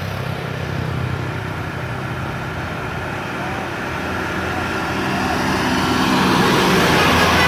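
Diesel bus engines pulling up a steep climb. The sound grows steadily louder as the buses approach.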